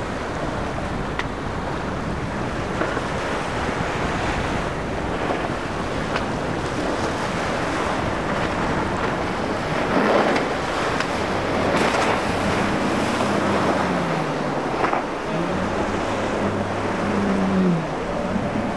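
Wind rushing across the microphone over breaking surf and churning water. About halfway through, the twin Suzuki 300 outboard motors of a rigid inflatable boat come in underneath, their pitch rising and falling as the throttle changes.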